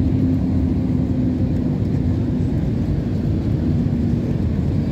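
Jet airliner cabin noise on final approach just above the runway: a steady low rumble of engines and airflow heard from inside the cabin, with a faint steady hum that fades in and out.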